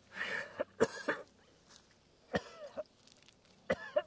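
A man coughing and clearing his throat in thick smoke: a quick run of harsh coughs in the first second, then two more single coughs spaced more than a second apart.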